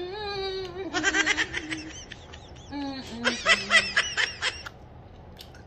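A woman's voice with her mouth closed while eating: a held, sliding hum, then two bouts of quick, pulsed giggling, the second longer.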